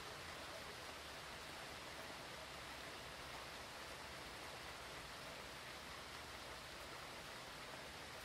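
Steady hurricane rain, heard as a faint, even hiss.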